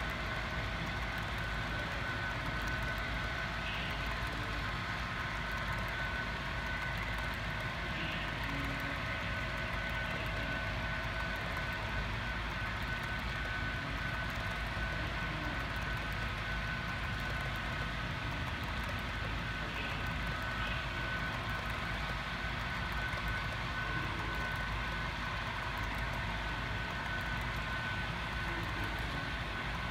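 Model railroad coal train running along the layout track: a steady low rolling rumble of wheels and motors with a constant thin high whine.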